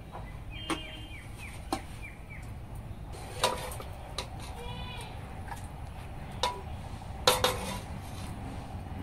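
A steel ladle clinks and knocks against a blackened iron wok and a steel plate as chicken curry is served, several sharp metallic hits with a brief ring, the loudest about three and a half and seven seconds in. A goat bleats in the background around the middle.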